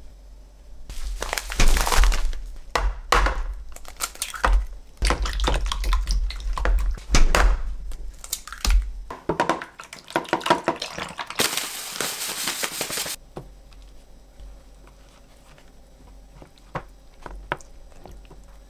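Kitchen handling sounds: a run of knocks and crinkling for several seconds, then wooden chopsticks clicking quickly against a tray as eggs are beaten, ending in a brief burst of fast scraping. After that only faint soft ticks.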